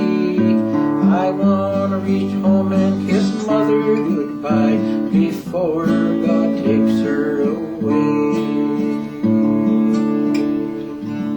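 Acoustic guitar strummed in a steady country rhythm, with melody notes over the chords: the instrumental close of the song.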